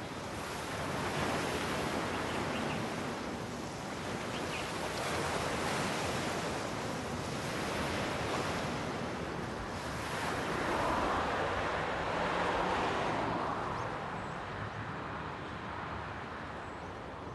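Waves breaking and washing over a pebble shore, the surf swelling and easing every few seconds.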